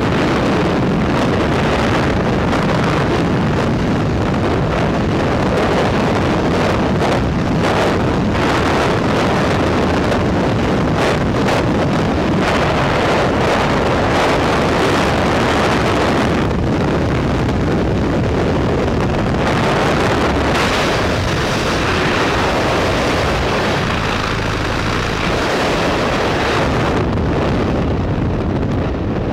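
Freefall wind rushing over the camera's microphone during a tandem skydive: a loud, steady roar of rushing air that eases slightly near the end.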